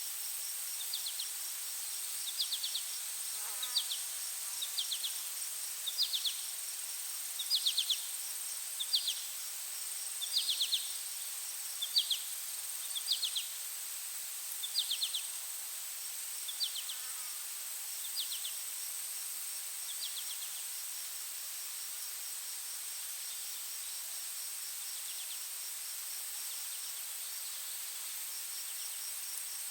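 Forest ambience at night or dusk: insects keep up a steady high-pitched drone with a fast pulsing trill under it, while a creature repeats a short chirp about once a second that fades away about two-thirds of the way through.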